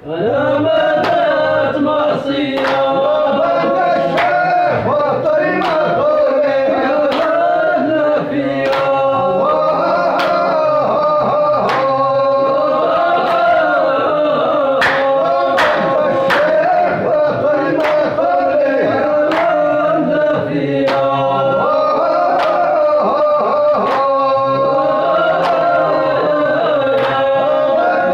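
A group of men singing a traditional folk chant together, with sharp handclaps keeping time through it.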